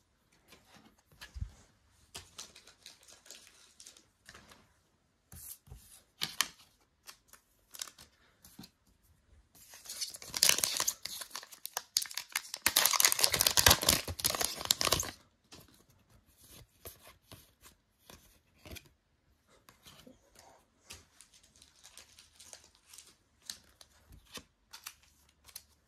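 A foil trading-card booster pack being torn open with crinkling of the wrapper, loudest from about ten to fifteen seconds in. Before and after, cards and packs are handled with quieter rustles and clicks.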